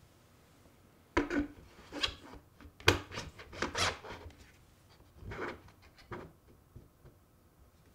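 Trim router's motor body being slid up into its metal base by hand: an irregular run of knocks and metal-on-metal scrapes, the loudest about three seconds in, followed by a few fainter knocks as the base's clamp lever is handled.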